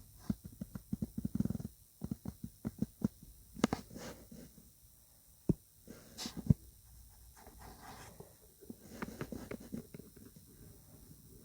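A pet dog making low sounds close by, among irregular light clicks and taps.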